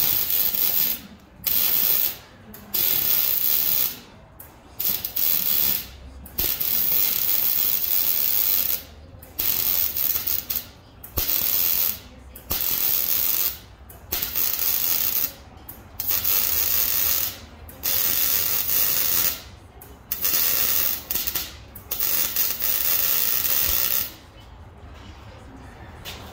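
Wire-feed welder crackling as a new exhaust pipe section is welded in, in a run of about fifteen short bursts of half a second to two seconds each with brief pauses between. It stops a couple of seconds before the end.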